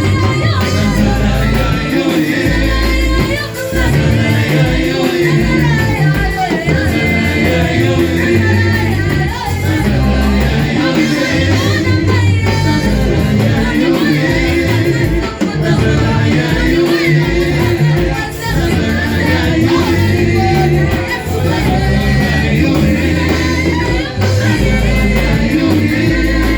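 Live worship music: a band with strong bass and drums playing while voices sing, in a large hall.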